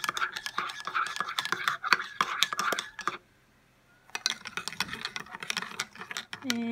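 A metal teaspoon stirring coffee in ceramic mugs, clinking rapidly against the sides. The clinking stops for about a second midway, then starts again.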